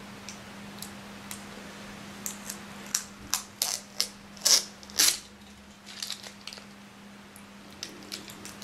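Irregular light metallic clicks and clinks, a cluster of them between about two and five seconds in, over a steady low hum.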